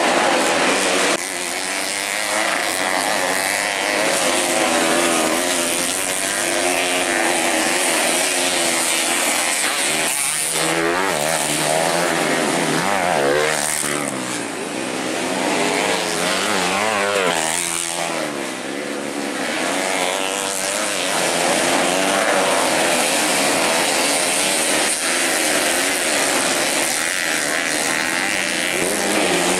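Dirt bikes racing, their single-cylinder engines revving hard, the pitch climbing and dropping again and again as the throttle is worked.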